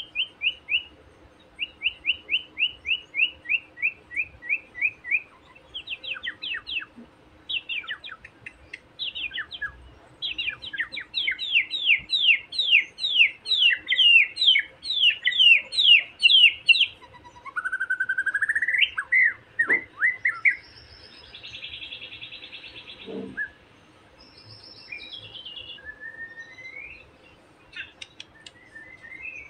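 Young wild white-rumped shama (murai batu) giving taunting challenge song: runs of quick, repeated falling whistled notes, then a rising whistle and a short harsh rattle, with scattered sharp notes near the end. It is a lure recording meant to provoke a rival shama into singing.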